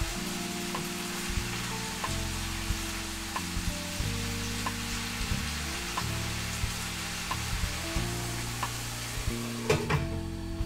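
Food sizzling in oil in a frying pan with a steady hiss, and scattered light clicks of a utensil against the pan. Background music with sustained chords plays underneath.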